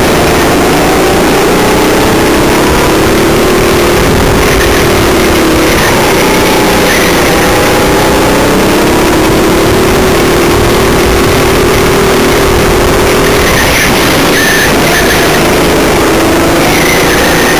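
Go-kart's motor running hard through laps, its pitch rising as it speeds up and dipping as it slows for corners, several times over.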